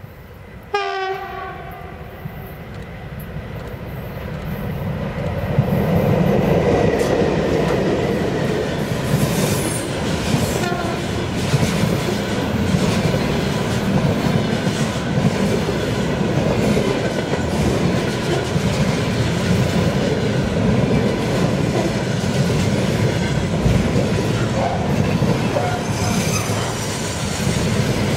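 Electric locomotive sounds a short horn blast about a second in, then a long container freight train approaches and rolls past. The noise grows over the next few seconds and then holds steady, with the rhythmic clickety-clack of the wagons' wheels over rail joints.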